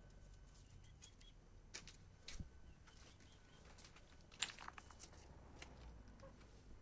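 Near silence with a low room hum and a few faint, scattered clicks and taps, the clearest about two-thirds of the way in.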